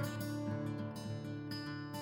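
Background music led by acoustic guitar, strummed and plucked.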